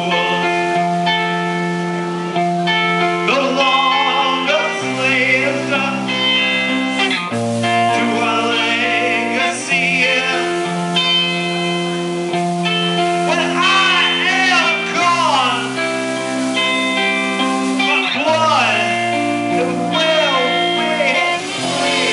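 Rock band playing live, led by guitar: sustained chords and single notes over a low bass line, with several bent notes around the middle and near the end.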